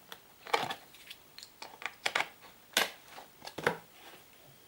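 Cap'n Crunch Peanut Butter Crunch puffs crackling in freshly poured milk: a dozen or so irregular sharp crackles and pops.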